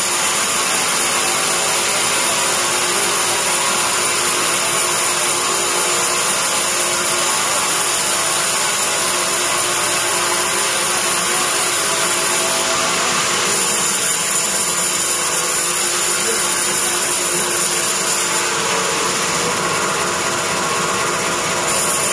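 Large vertical sawmill bandsaw sawing a teak log as the rail carriage feeds it through the blade, a loud steady machine noise with a hiss of the blade in the wood.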